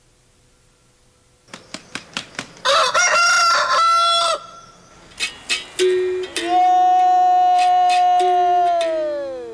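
Capoeira music starting up: sharp rattling strokes and two alternating twangy notes of a berimbau with caxixi rattle. A loud wavering call of under two seconds comes about midway, and a long held note slides down in pitch near the end.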